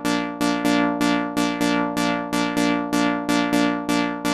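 Synth lead sample in Maschine's sampler playing a looping pattern: one repeated note, about three a second, each struck sharply and fading quickly. The notes sound at even loudness because the velocity-to-volume setting is at zero, so the differing programmed velocities no longer change the volume.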